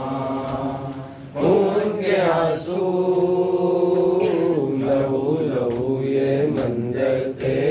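A lone unaccompanied male voice chanting a noha, a Shia lament in Urdu, holding long wavering notes. A few sharp slaps, likely chest-beating (matam), sound alongside, most clearly near the end.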